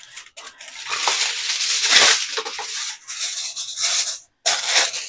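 A sheet of kitchen wrap being pulled from its dispenser box and crinkled, a dense rustling that is loudest about two seconds in. A shorter rustle follows near the end.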